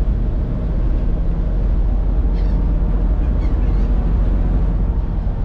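Steady low rumble of a car ferry under way, its engines running with wind noise on the microphone.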